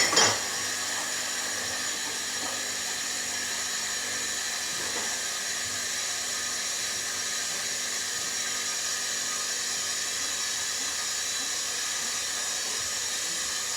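Hoover washing machine spinning a load of bedding: the motor and drum give a steady high whine with hiss at an even speed. A short sharp knock comes right at the start.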